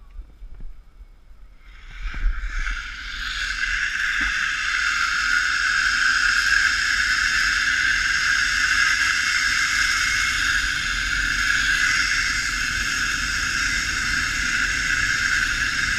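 Zipline trolley pulleys running along the steel cable: a steady, loud whir that starts with a couple of knocks about two seconds in.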